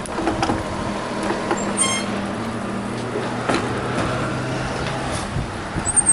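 Vehicle engine running at a steady low pitch, with road noise; the engine note fades out about five seconds in. A short high beep sounds about two seconds in.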